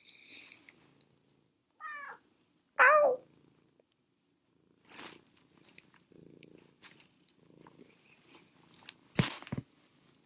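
Orange tabby cat purring, with two short meows about two and three seconds in, the second louder and falling in pitch. A sharp knock comes near the end.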